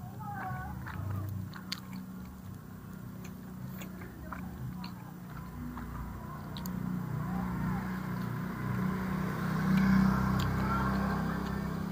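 A man chewing a mouthful of sate with his mouth closed, with small mouth clicks. Underneath there is a steady low rumble that swells about ten seconds in.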